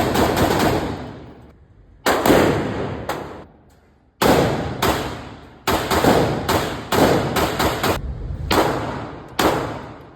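Gunfire at a range. A rapid string of shots ends just after the start. After a pause of over a second comes a series of single shots about half a second to a second apart, each with a ringing echo.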